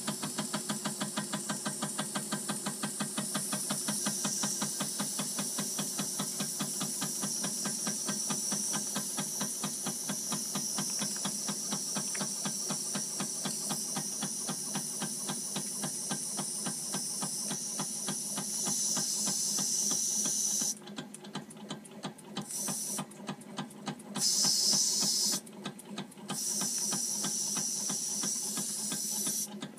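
Wilesco D5 toy steam engine running, its single oscillating cylinder puffing in a fast, even rhythm over a steady hiss of escaping steam. From about two-thirds through, the hiss cuts out and comes back several times while the puffing carries on.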